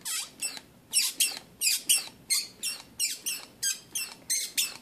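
Hand-held brake bleeder vacuum pump being squeezed repeatedly, squeaking on each squeeze and release: about seven quick pumps in pairs of strokes, drawing a vacuum that pulls the pressure down.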